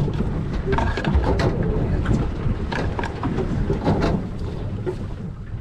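Wind buffeting the microphone on a boat at sea, with the rush of the boat and water and several scattered knocks.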